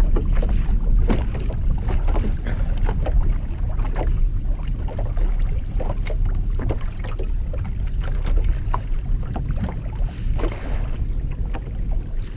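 Wind rumbling on the microphone, with irregular small taps and splashes of water chop against a fishing boat's hull.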